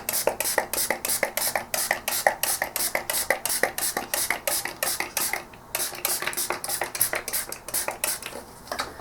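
A brush scrubbing a dusty monitor circuit board with isopropyl alcohol: quick, scratchy back-and-forth strokes, about four or five a second, with a brief pause a little past halfway.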